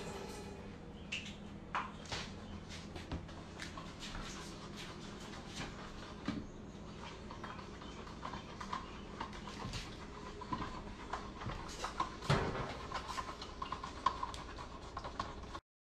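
A kitten's claws hooking and rustling on cloth trousers as it climbs a person's leg, giving faint scattered clicks, with a few faint mews from the kitten. There is a louder knock about twelve seconds in.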